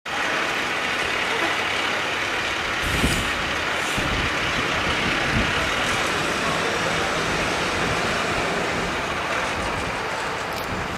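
Fire engine's diesel engine running as it pulls away across the intersection, over steady road-traffic noise, with a few brief low rumbles in the first half.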